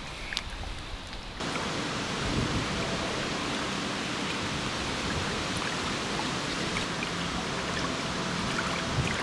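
Rain falling on a lake's surface: a steady, dense hiss of drops that sets in abruptly about a second and a half in, after a quieter start.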